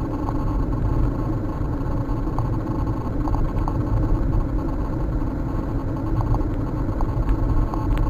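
Car driving at road speed, heard from inside the cabin: a steady low rumble of engine and tyres on the road.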